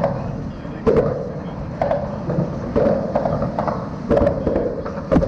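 Small waves slapping against the hull of a fiberglass bass boat, a hollow knock about once a second.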